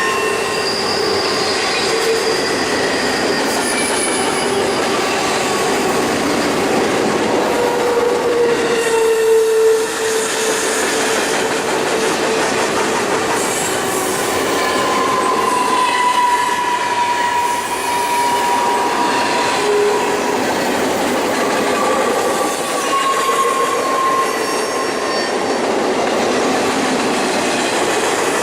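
Intermodal freight train's cars rolling past, a steady loud rumble of steel wheels on rail, with thin squealing tones from the wheels that waver and come and go.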